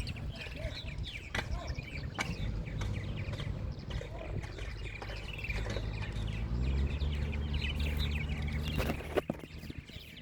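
Purple martins chattering over the steady low hum of road-crew engines, which grows louder about two thirds of the way through.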